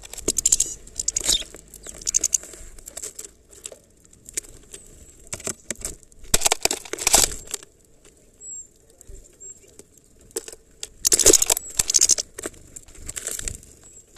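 A small bird at a plastic-bottle feeder of black sunflower seeds: sharp taps of beak and claws on the plastic and seeds, broken by three loud spells of wing-fluttering and seed scrabbling about a second long each.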